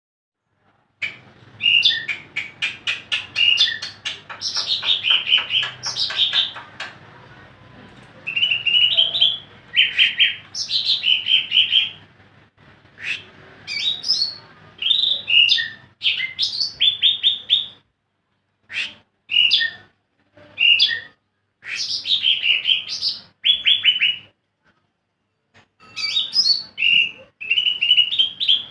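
Green leafbird (cucak ijo) singing: bursts of rapid, high whistles and chattering notes, phrase after phrase with short pauses between them.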